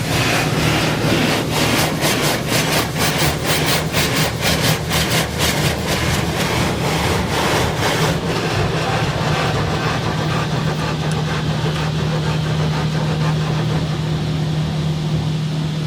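Automatic car wash machinery working on a car. For about eight seconds there is a rapid pulsing of spray or brushes against the car, about three beats a second. It then settles into a steady machine hum with a rush of noise.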